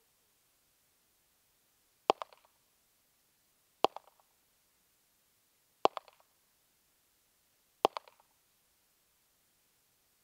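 Pistol fired four single shots, about two seconds apart, each a sharp crack with a short fainter tail.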